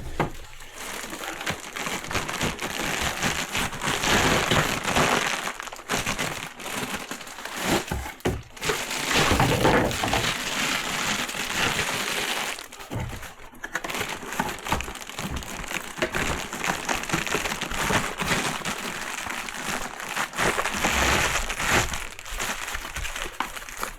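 Packaging crinkling and rustling as small parts are handled and sorted, with scattered clicks and knocks.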